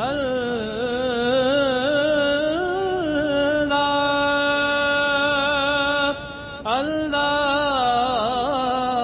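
A solo voice chanting unaccompanied: long held notes with the pitch winding up and down between them, and a short pause for breath about six seconds in.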